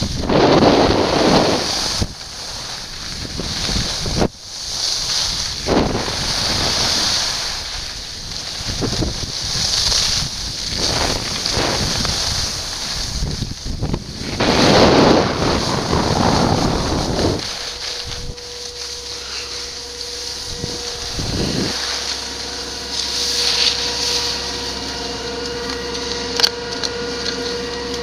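Wind rushing over the microphone and skis sliding on groomed snow during a fast downhill run, the noise swelling and easing. About two-thirds of the way through the rush dies away and a steady mechanical hum with a held tone takes over: chairlift drive machinery at the loading area.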